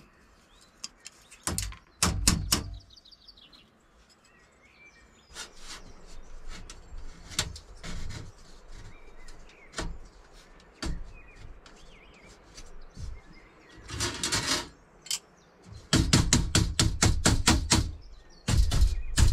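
Steel molding strips of a dome frame clicking and clanking as they are handled and bent by hand. There are scattered knocks at first, then a run of rapid metallic clattering in the last few seconds.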